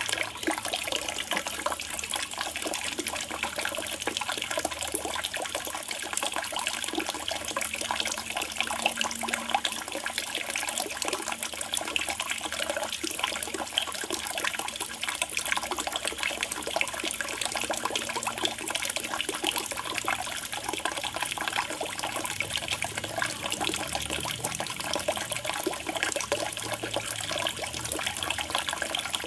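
Water trickling and splashing steadily into a pond, with a dense, even patter of small splashes.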